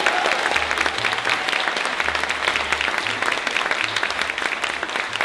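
Audience applauding: a dense, steady clatter of many hands clapping, with low bass notes sounding now and then underneath.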